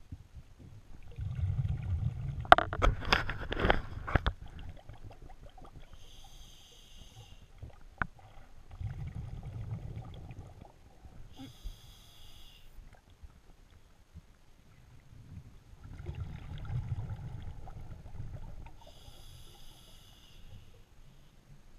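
Scuba diver breathing underwater, heard about every seven seconds: a short hiss on each breath in and a bubbling rumble on each breath out. The exhaled bubbles crackle loudest about three seconds in.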